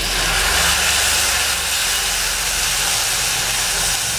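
Water splashed onto onions and spices frying on a hot tawa griddle, boiling off in a loud, steady sizzling hiss.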